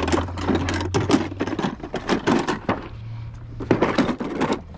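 Metal hand tools clinking and clattering in quick succession with the thud and slide of a toolbox drawer, as a wrench is picked out. There is a short lull near the middle.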